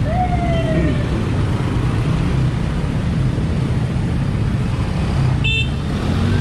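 Steady roadside traffic rumble of motor vehicles. An engine note falls in pitch during the first second as a vehicle passes, and a brief high-pitched toot sounds about five and a half seconds in.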